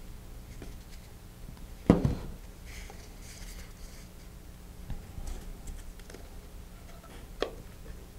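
Small handling sounds at a work table while gluing paper rocket parts: a sharp knock about two seconds in, faint paper rustling and rubbing, and a lighter tap near the end, over a low steady hum.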